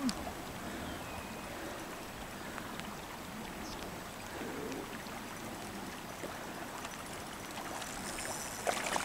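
Shallow river current running over stones, a steady rush of water, with a brief louder patch of splashing and clicking near the end.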